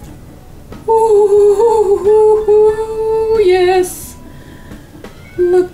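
A woman humming a wordless tune: high held notes that step up and down for a couple of seconds starting about a second in, drop to a short lower note, and come back briefly near the end.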